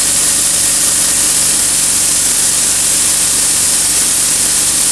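Vortex air-cleaning gun blowing a steady hiss of compressed air at 90 PSI, holding its pressure without tailing off. Underneath, a Ridgid 4.5-gallon air compressor runs with a steady, evenly pulsing hum as it refills.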